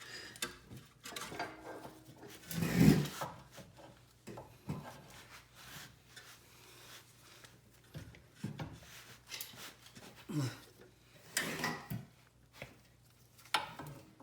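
Irregular knocks, clunks and scrapes as the inner end of a 2011 Mercedes C300 4Matic's front right CV axle is worked and pushed into its seat. The loudest clunk comes about three seconds in, with more knocks near the end.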